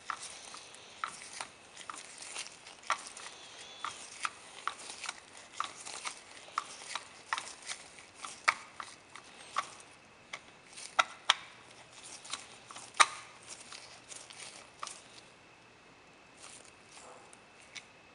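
Screwdriver working a grip frame screw out of a Colt open top revolver: an irregular run of sharp clicks, about two or three a second, that stops about fifteen seconds in.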